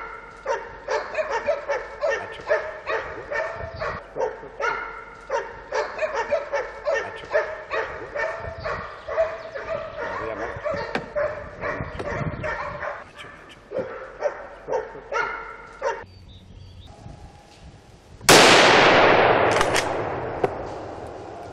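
Hunting dogs baying on a wild boar drive: a rapid string of barks and yelps, two or three a second, that stops about sixteen seconds in. A couple of seconds later comes a single very loud gunshot with a long rolling echo that fades away.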